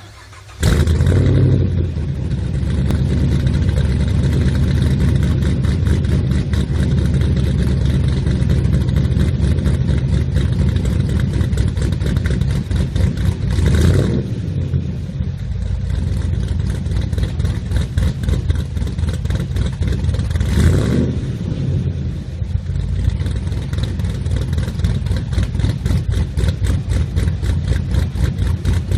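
LS3 6.2-litre V8 with a Jannetty JRE470 rough-idle blower cam and ported heads starts up about half a second in and settles into a loud, rough, uneven idle. It is revved briefly twice, near the middle and about two-thirds of the way through.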